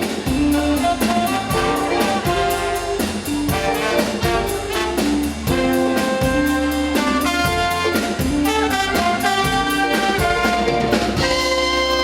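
Band playing an upbeat soul number with a horn section of saxophone, trumpet and trombone over a drum kit, an instrumental passage with no singing.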